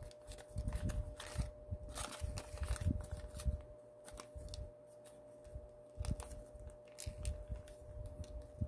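Origami paper being folded and pressed into shape by hand: irregular crinkling rustles and soft taps, with a quieter pause partway through.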